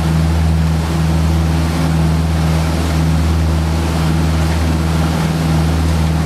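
Motorboat engine running steadily, a low even drone, with wind and water rushing noise over it.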